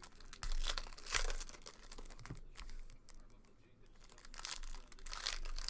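Trading-card pack wrappers crinkling and tearing as packs are opened and handled, in uneven bursts.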